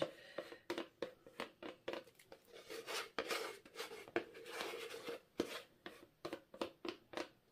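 Wooden stir stick scraping around the inside of a plastic cup in many short, irregular strokes, with a few longer scrapes, working out the last of thick black acrylic pouring paint.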